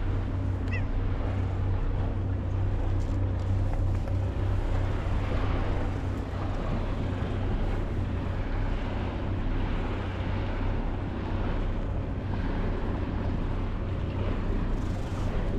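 A steady low rumble with a constant hum, over even outdoor background noise.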